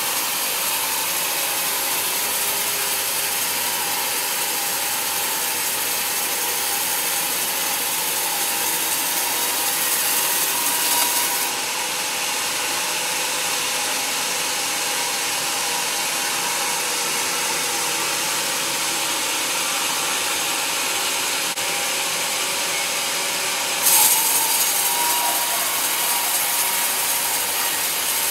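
Band sawmill blade cutting lengthwise through a teak slab: a steady, continuous rasping hiss of the blade in the wood. It swells briefly and drops off about 11 seconds in, then rises suddenly and louder about 24 seconds in.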